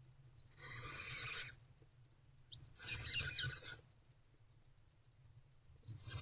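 Barn owl owlets giving rasping begging hisses, three long hisses about two seconds apart, the last starting near the end.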